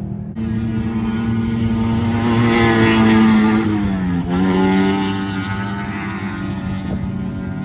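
Off-road race truck engine held at high revs as the truck passes, swelling to its loudest about three seconds in. The revs dip briefly and pick up again a little after four seconds, then the sound eases off.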